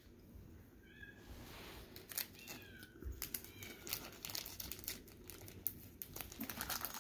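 Thin plastic jewelry bag crinkling and rustling as it is handled, in quick crackles from about two seconds in. A cat meows faintly a couple of times in the first few seconds.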